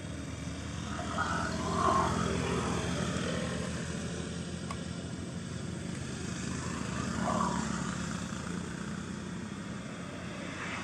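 Steady low drone of a distant engine, with a few short higher sounds about a second in and again about seven seconds in.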